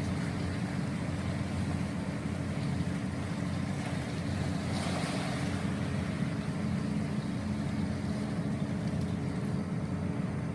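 Steady low drone of a roll-on/roll-off ferry's engines running, with a little hiss of wind or water over it about halfway through.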